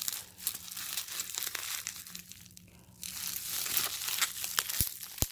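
Bubble wrap crinkling and rustling as a laptop is slid out of its bubble-wrap sleeve, dipping quieter for a moment near the middle, with a sharp click near the end.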